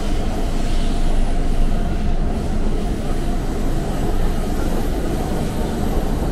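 Subway train running through a tunnel, heard from inside the passenger carriage: a steady, loud rumble and rush of wheels on rails.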